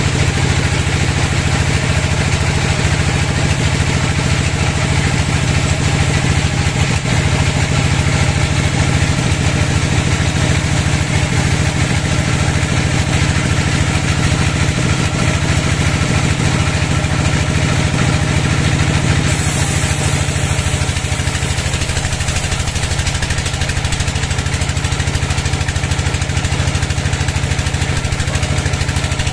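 Large band sawmill running steadily, its blade cutting lengthwise through a big teak log, a continuous machine drone with saw noise over it. About two-thirds of the way through the sound shifts and thins a little.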